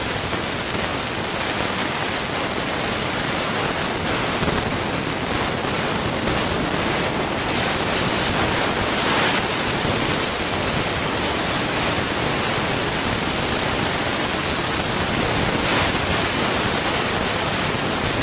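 Steady rushing noise, even from low to high pitch, with no distinct shots, engine tones or voices.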